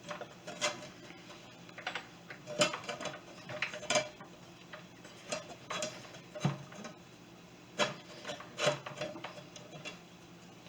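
Scattered light metal clinks, knocks and scraping as a 10-inch saw blade is fitted back onto a Ryobi miter saw's arbor, about a dozen irregular strikes.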